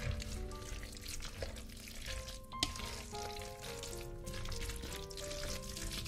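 Food sizzling in a hot frying pan, a steady crackling hiss with small ticks and one sharper tap about two and a half seconds in, over background music of held notes.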